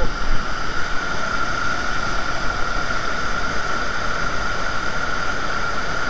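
Small waterfall and stream in a rocky gorge, a steady loud rush of falling water, with a brief knock or two right at the start.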